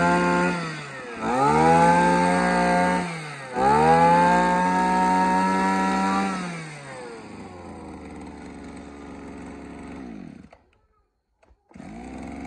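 Small Robin 25cc brush cutter engine revved with the throttle three times, each rev held for one to three seconds and then let back down. It then settles to a steady idle and goes silent about ten seconds in.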